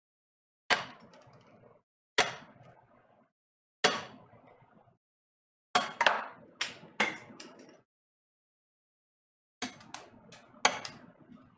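Sharp knocks and taps of a hand tool against the delta 3D printer's bed and printed part, each ringing briefly. At first they come singly about a second and a half apart, then in quick clusters of two or three.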